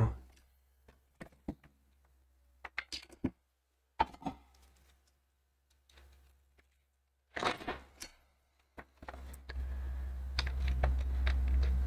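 Scattered light clicks and taps of small tools being handled on a workbench, with near silence between them. From about nine and a half seconds in, a steady low hum with a hiss over it comes in and grows slightly louder.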